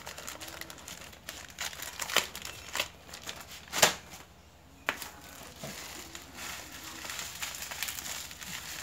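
Plastic mailer bag being handled and crumpled, crinkling, with a few sharp clicks. The loudest click comes about four seconds in.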